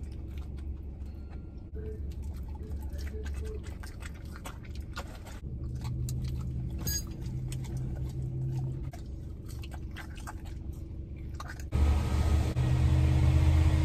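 Car engine idling, heard from inside the cabin, with small clicks and rustles of food handling and chewing. Near the end a louder rushing noise comes in as the driver's window is open to the outside.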